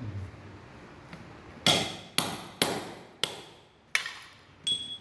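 Hammer blows driving a ball bearing into a brush cutter's gearhead housing: six sharp metallic strikes, roughly half a second apart, each with a short ring.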